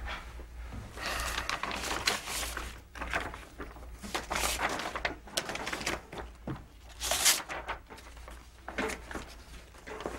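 Sheets of paper rustling and shuffling in bursts as documents are handled, over a low steady hum.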